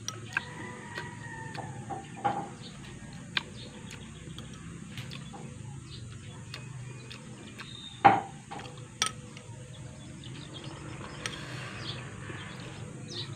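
Quiet eating sounds: soft chewing, with a metal fork clicking against the dish a few times, the sharpest click about eight seconds in.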